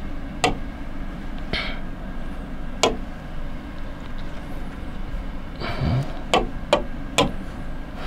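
Pen tapping on an interactive whiteboard screen: several sharp, isolated clicks, three in quick succession near the end, over a steady low hum.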